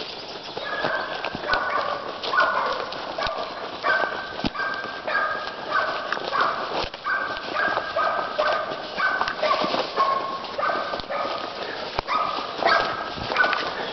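A dog barking over and over, short high-pitched barks at about one and a half a second, with twigs snapping underfoot.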